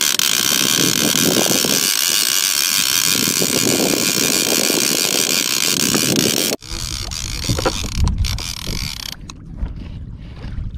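Conventional fishing reel in a dense, steady ratcheting whirr as the line is worked against a hard-pulling fish. About two-thirds of the way through it cuts off abruptly, giving way to quieter wind and water noise.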